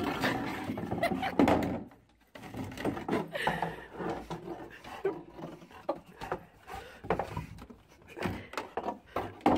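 A dog handling a red plastic snow shovel on a snowy wooden deck: irregular thunks and scrapes as the plastic blade knocks and drags on the boards.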